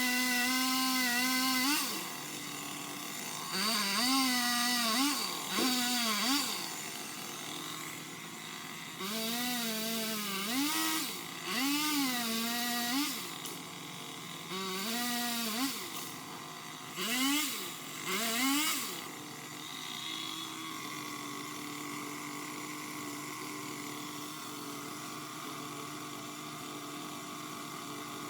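Craftsman power limb cutter (pole chainsaw) running in about eight short bursts, each revving up, its pitch sagging and recovering as the chain cuts through limbs. It stops a little over halfway through, leaving a steady faint hum.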